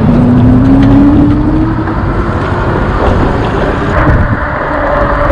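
Electric e-bike hub motor whining as the bike pulls away, its pitch rising slowly over the first two seconds as it picks up speed, with a higher, steady whine near the end. Loud wind noise on the microphone runs underneath.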